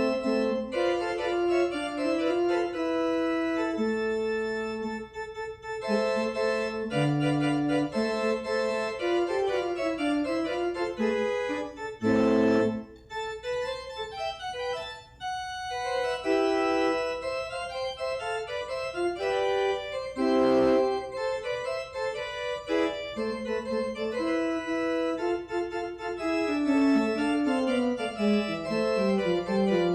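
Church organ playing the postlude: held chords with a melody moving over them, the notes changing every second or so.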